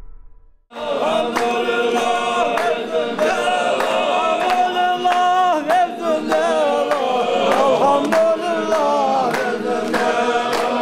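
A group of voices singing a chant-like song together, with sharp claps or beats sounding throughout. It begins about a second in, after a short silence.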